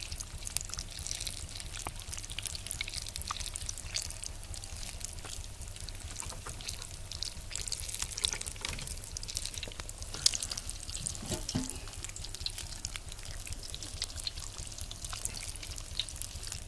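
Battered egg pakoras deep-frying in hot oil in a large iron wok. The oil sizzles steadily with a dense run of small crackles and pops.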